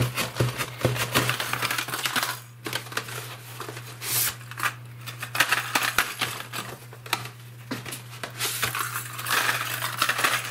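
Fishing lures in plastic blister packs being taken out of a cardboard box and set down on a tabletop: a busy run of plastic clicks, clatters and rustling, with brief lulls. A steady low hum runs underneath.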